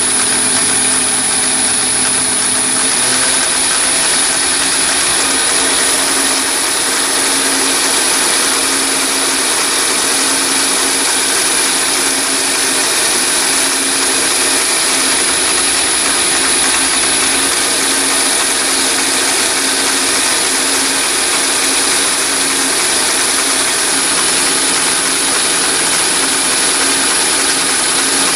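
Chinese mini lathe driven by a 1 HP three-phase motor on a VFD, running steadily while a carbide insert turns a steel bar, with a steady high whine over the machine noise.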